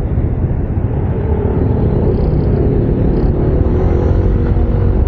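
Road-riding noise on a Yamaha NMAX 155 scooter through a lavalier mic with no wind shield: a steady low rumble of wind buffeting and traffic. A faint engine drone rises and falls through the middle.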